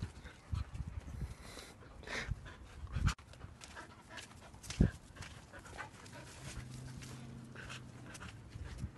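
Dogs panting and snapping at food held out to them, with scattered clicks and two sharp thumps, about three and about five seconds in.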